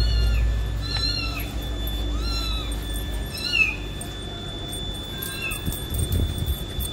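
A young kitten mewing repeatedly: about five short, high-pitched mews, each rising then falling, roughly a second apart, the last one fainter.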